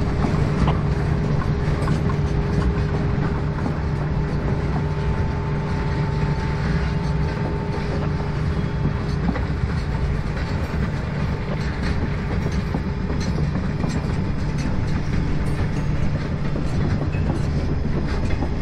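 Tail end of a CSX continuous-welded-rail train rolling past: its rail-handling cars, a boxcar and a bay window caboose running steadily on the track, with scattered wheel clicks.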